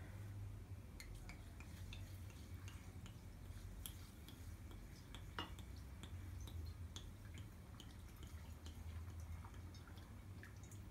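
Water poured slowly from a bottle into a glass jar packed with pickling vegetables: a faint trickle and dripping, with a few light ticks against the glass.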